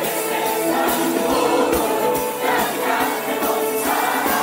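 Live band music with a large crowd singing along in held, sustained notes.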